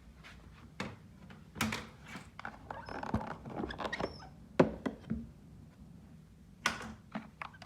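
Scattered clicks and knocks of a vacuum cleaner and its hose being handled, with two sharper knocks about halfway in and near the end.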